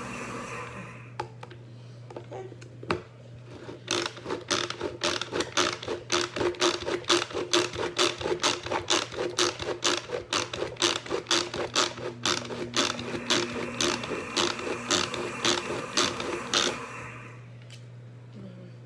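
Hand-pumped manual food chopper being worked in quick, even strokes, about two or three clacks a second for some thirteen seconds, chopping grape tomatoes coarsely; a couple of single knocks come before the pumping starts.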